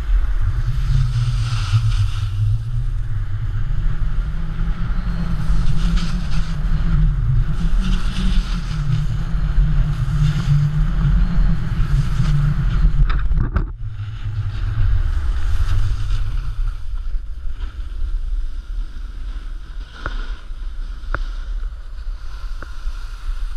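Wind buffeting a pole-mounted action camera's microphone while snowboarding downhill, mixed with the hiss of the board sliding over snow. The rumble eases and gets quieter about halfway through, just after a brief sharp click.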